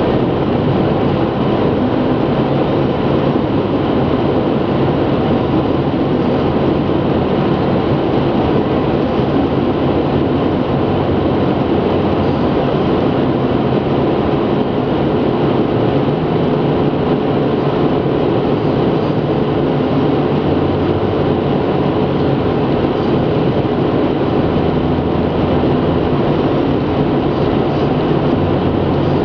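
Steady road noise inside a car's cabin at motorway speed: tyre and wind noise with a low engine drone, unchanging throughout.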